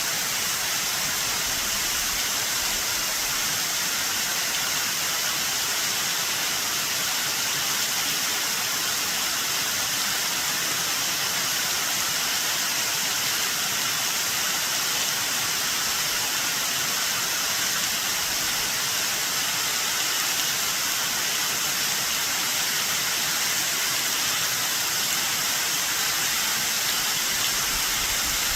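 Waterfall cascading off cliffs at high spring run-off: a steady, even rush of falling water.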